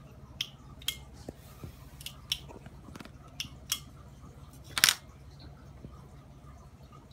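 About nine irregular, sharp clicks, the loudest a quick double click about five seconds in, over a low steady hum.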